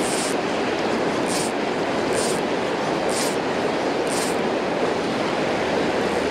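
Fast-flowing river rushing steadily over rocks, with a fly line swishing through the air about once a second during false casts; the swishes stop after about four seconds as the fly is laid on the water.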